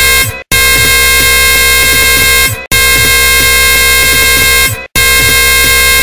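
A loud, harsh buzzing blare full of high overtones, repeating in blasts about two seconds long with a brief break between each.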